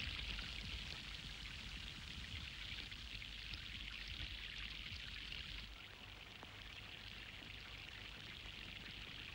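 Water splashing and pouring over rocks, a steady rushing hiss that drops to a quieter trickle about six seconds in.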